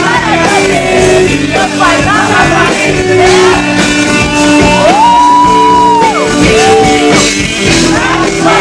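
Rock song with singing over steady band accompaniment, and one long held note about five seconds in.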